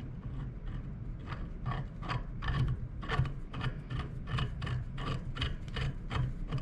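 Pedal-arm removal tool being threaded by hand into a kayak pedal drive's crank arm: a short rasp of the threads and fingers on the tool, about three a second, as it is twisted in.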